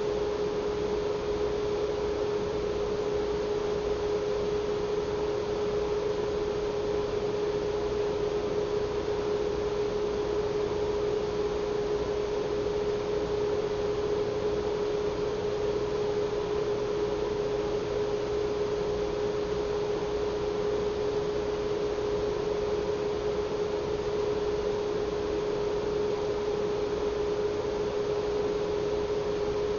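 A steady hum: one unbroken mid-pitched tone, with a fainter higher one, over a light even hiss.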